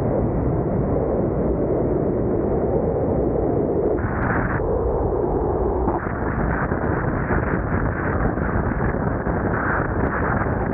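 Strong wind rushing and buffeting over the microphone of a camera mounted outside a moving vehicle, mixed with road noise, a steady loud rumble throughout.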